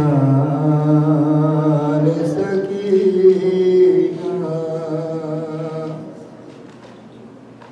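A man's solo voice chanting a melodic recitation with long, held, wavering notes. It breaks off about six seconds in for a short pause.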